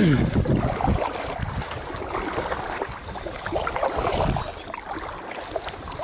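Water sloshing and splashing around a moving kayak, with wind buffeting the microphone.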